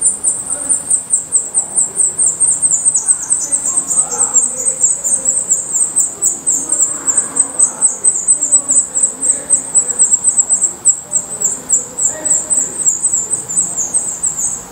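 Black redstart nestlings begging: a fast, unbroken run of thin, very high descending peeps, several a second.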